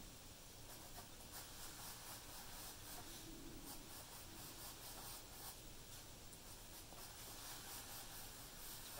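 Faint pencil scratching on paper: a run of short strokes drawing a dashed line.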